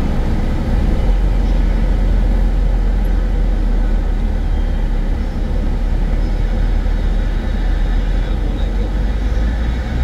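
Steady road and engine noise of a car driving on the autobahn, with a deep low rumble that grows stronger about a second in.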